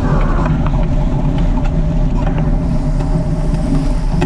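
Airwolf powered parachute's engine running steadily, a constant low hum with a steady higher tone above it.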